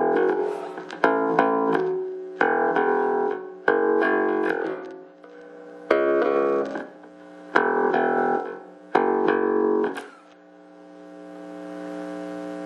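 Glarry Jazz-style electric bass played through a small practice amp on its bridge pickup with the tone full up: a run of plucked notes with sharp attacks, stopping about ten seconds in. A steady hum from the amp then remains and slowly grows, which the owner puts down to grounding and missing shielding.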